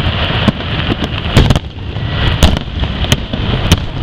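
Aerial fireworks bursting, about five sharp booms spread over the few seconds, over a steady rushing background noise.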